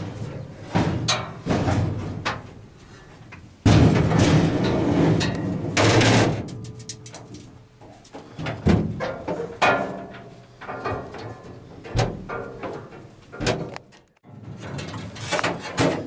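Knocks and clatter from someone working inside a combine harvester, with a loud rushing noise for about two and a half seconds a few seconds in, then scattered light ticks of a few seeds dropping inside the machine: residual seed left in a combine being inspected for cleanout.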